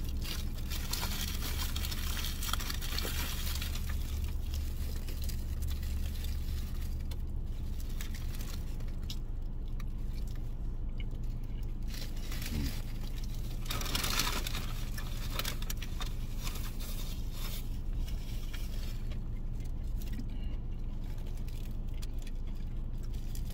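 A person chewing a mouthful of burger with a crispy fried mozzarella patty, with small rustles of a foil wrapper and paper napkin, over a steady low hum inside a car.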